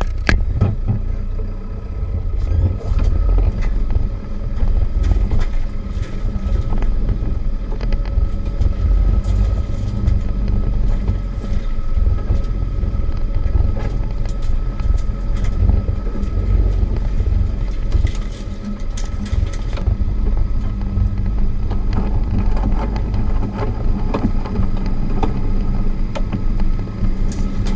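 Land Rover Defender 90 driving over snow, its engine a steady low drone with scattered knocks and clicks from the vehicle.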